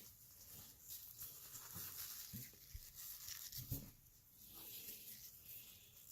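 Faint rustling and a few soft taps of trading cards being leafed through and set down by hand.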